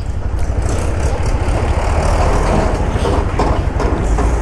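Motorcycle being ridden, with wind buffeting the microphone over the engine and road noise: a steady, heavy low rumble with a hiss above it.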